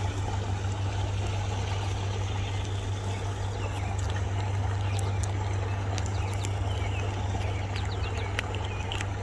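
A steady low mechanical hum that does not change, with a few faint light clicks in the second half.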